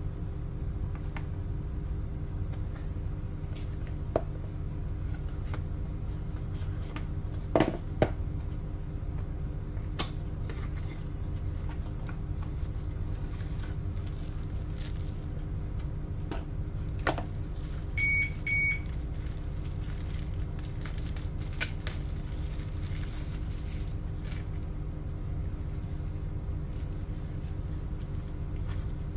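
Cardboard box inserts and packaging being handled by hand: scattered light clicks, taps and knocks over a steady low hum. Two short high beeps come a little past halfway.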